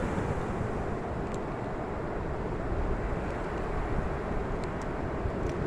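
Ocean surf with wind buffeting the microphone: a steady rushing noise with no single wave standing out.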